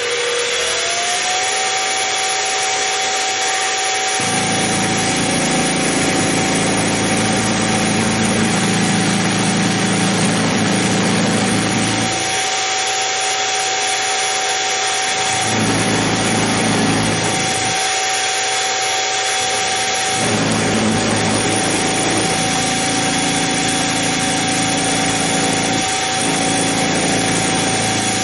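Harbor Freight 44991 mini mill's spindle running with a steady whine that rises briefly at the start, and its end mill cutting a radius on the metal link as the rotary table is turned by hand. The cutting comes and goes in three long spells: one from about four seconds in to about twelve, a short one a few seconds later, and a last one from about twenty seconds in.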